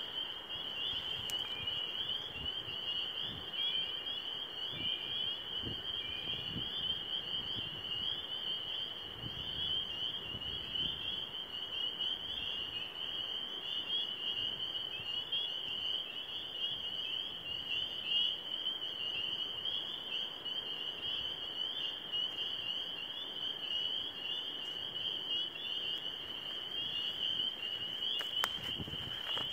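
A spring frog chorus at night: a dense, steady chorus of many overlapping high, rising calls, with a couple of faint clicks near the end.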